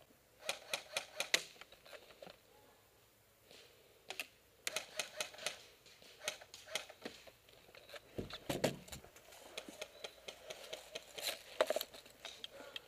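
Airsoft guns firing in several short bursts of sharp, rapid clicks, with single shots and ticks in between.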